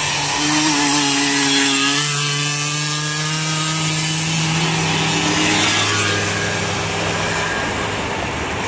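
Small 50cc two-stroke engines buzzing at high revs as riders pass, the engine pitch holding and then shifting up and down.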